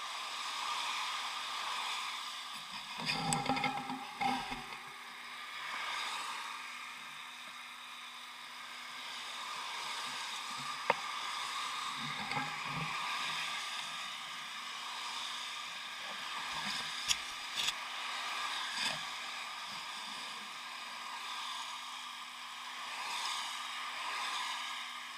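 Bicycle tyres hissing steadily on a wet road while riding in the rain, with a few short, sharp clicks along the way.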